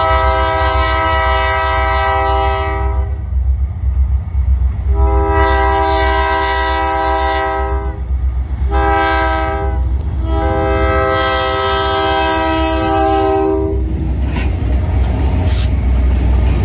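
EMD GP20 diesel locomotive's horn sounding the grade-crossing signal: two long blasts, a short one and a final long one. The lead GP20 units then pass close by with a steady low diesel rumble.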